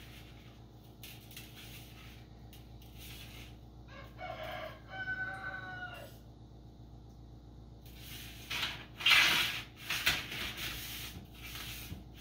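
A rooster crows once in the background, one drawn-out call of about two seconds. Then come several short scraping, rattling rustles, the loudest sound here, as dried bouillon pieces are pushed around on a metal baking sheet.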